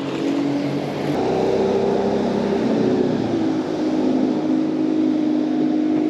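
An engine running steadily, its drone wavering slightly in pitch and growing a little louder about a second in.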